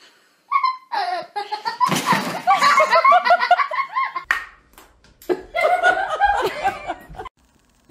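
People laughing hard in quick repeated bursts, with a short break about four seconds in before a second stretch of laughter.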